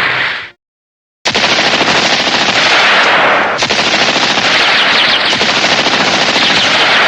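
Tokusatsu sound effect of rapid machine-gun fire: a dense, continuous rattle of shots starting about a second in after a short silence and running for around six seconds, with a slight change in tone partway through. The tail of a previous effect fades out at the very start.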